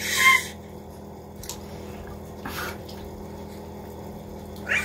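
Baby splashing in a plastic tub of bath water: a loud splash with a short squeal of laughter at the start, a smaller splash about two and a half seconds in, and a brief baby vocal sound near the end.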